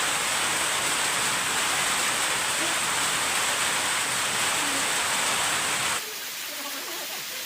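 Heavy rain falling steadily with a dense hiss. About six seconds in it drops suddenly to a quieter wash of rain.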